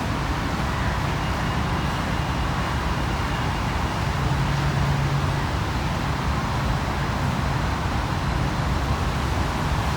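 Distant city road traffic, a steady rumble, with one engine's low hum swelling about four to five seconds in.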